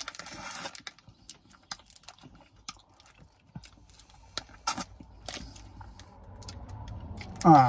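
Close-up mouth sounds of eating an ice cream in a wafer cup: licking, lip smacks and scattered soft crunches and clicks. Just before the end comes a short, loud vocal sound with a bending pitch.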